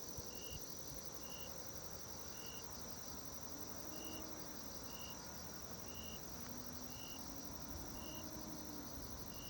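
Insect chorus: a steady, high-pitched trill, with a short higher note repeating evenly a little more than once a second.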